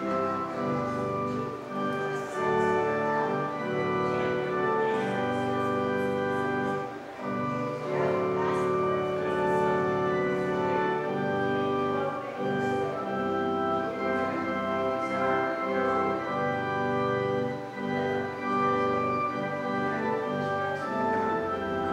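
Organ music: slow held chords, changing every second or so, with a melody moving above them.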